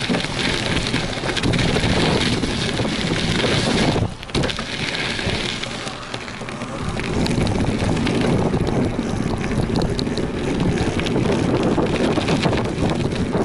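Wind buffeting an action camera's microphone during a fast ride around a BMX track, mixed with tyre noise over packed dirt and asphalt. The noise swells and eases with speed and drops out briefly about four seconds in.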